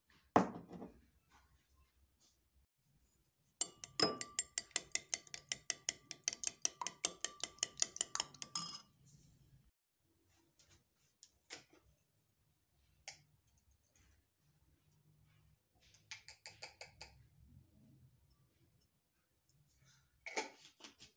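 Rapid, rhythmic clinking of a utensil against kitchenware for about five seconds, with a shorter run of clinks later on. A knock comes just after the start and another near the end.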